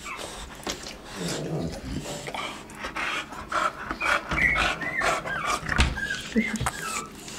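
A dog snoring and snuffling in its sleep, with short high squeaky whimpers in the second half.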